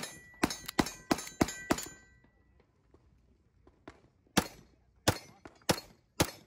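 Pistol shots at an outdoor range: six fast shots about three a second, then after a pause of about two and a half seconds four more at a slightly slower pace.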